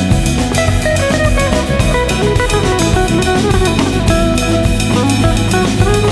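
Background music: an instrumental stretch of a rock/hip-hop track with a steady drum-kit beat and guitar.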